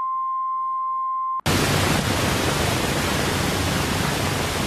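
A steady, high electronic beep tone that cuts off abruptly about a second and a half in. It gives way to a steady static hiss, louder than the tone.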